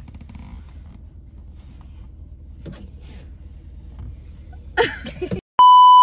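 Low steady rumble of a car interior, then a loud, steady, high-pitched electronic bleep lasting under a second near the end, edited in as the picture cuts away.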